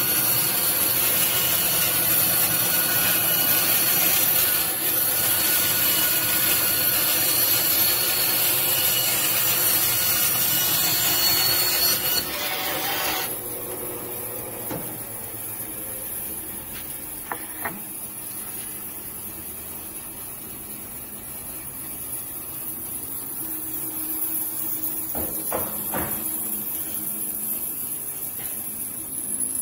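Power tool working a wooden countertop piece, running steadily for about twelve seconds and then stopping suddenly. A quieter stretch follows with a few light knocks.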